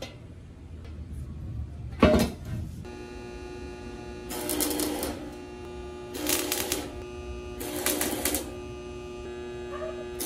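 A single loud metal clank about two seconds in, then four short bursts of stick-welding arc crackle, tack welds on a square steel tube frame, over a steady hum.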